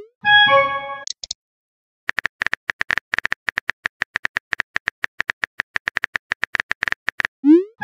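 Chat-app sound effects: a short chiming alert of several stacked tones as a message arrives, then a rapid run of short typing blips, about ten a second, for about five seconds while a reply is typed out. A quick rising swoop comes near the end.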